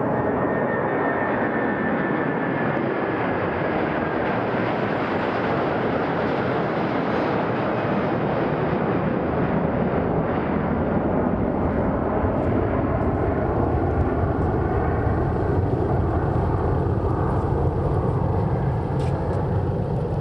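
Airbus A330-300's twin jet engines at takeoff thrust as the airliner climbs away: a steady rush of loud engine noise, with a faint high whine that falls in pitch over the first few seconds and a low rumble that grows stronger in the second half.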